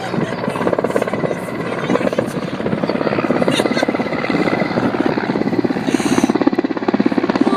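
Helicopter rotor beating in fast, even pulses, growing louder from about halfway through.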